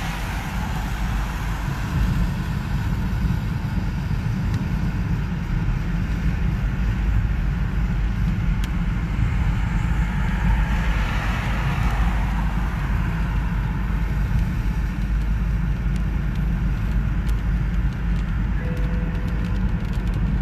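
Car driving through wet traffic, heard from inside the cabin: a steady low engine and road rumble with tyre hiss off the wet road. The hiss swells about halfway through, and a few light ticks come in the second half.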